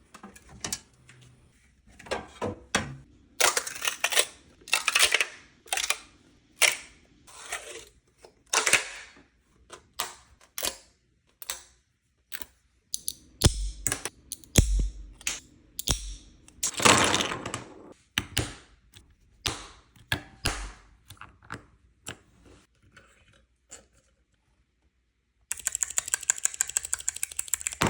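Hard plastic clicking, clacking and short rasps from 3D-printed fidget toys and clickers being worked by hand, with a few dull thumps midway. Near the end comes a fast, even run of clicks.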